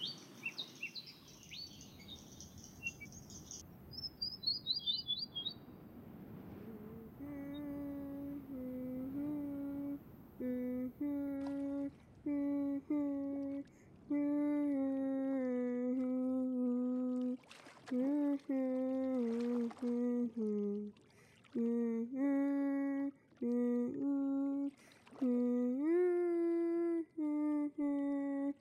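Birds chirp for the first few seconds. Then a female voice hums a slow wordless melody in long held notes, phrase after phrase with short breaks between them.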